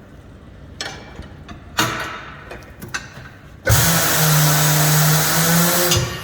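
A few short metal clanks, then the Coats 80X tire changer's turntable motor running with a steady hum for about two seconds, starting suddenly past the middle and cutting off sharply. The table is turning to walk the tire bead over the rim lip at the mount head.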